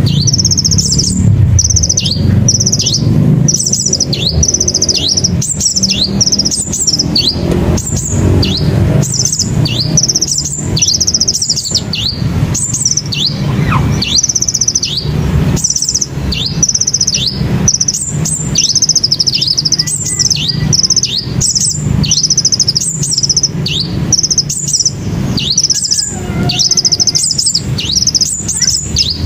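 Sunbird calling over and over: a fast string of high, thin notes, each dropping sharply in pitch, about two a second. A steady low rumble runs underneath.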